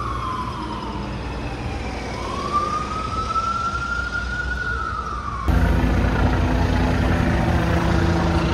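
Emergency vehicle siren wailing, its single tone gliding slowly down, up and down again over steady traffic noise. About five seconds in it cuts off abruptly, replaced by a louder, steady low engine hum.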